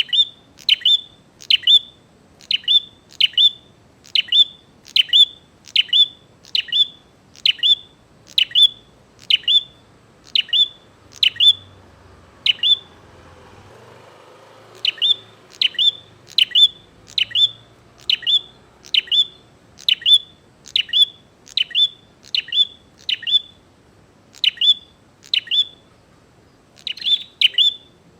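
Prenjak (prinia) calling in a fast, persistent series of sharp, high 'chip' notes, about two a second, with a brief pause about halfway through. It is the loud, chattering 'gacor' calling that keepers play to provoke another bird into answering.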